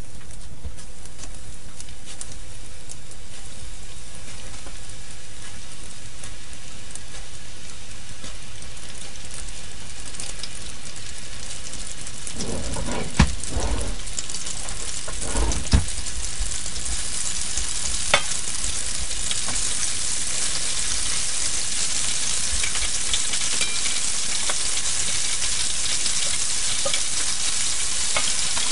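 Battered chicken pieces deep-frying in a pot of hot oil: a steady, even sizzle that grows louder and brighter in the second half. A few knocks and a sharp click come near the middle.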